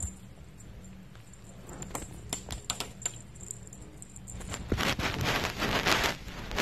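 A Sphynx kitten playing with a dangling string toy on a fleece bed: scattered light clicks and faint tinkles, then denser rustling for about a second and a half near the end.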